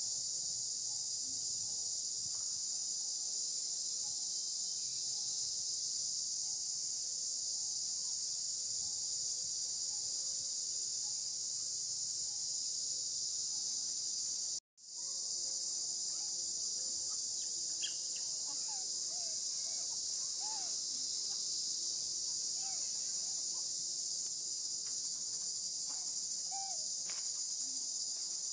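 A steady, high-pitched chorus of insects. The sound cuts out for an instant about halfway through, and a few faint short calls come through after that.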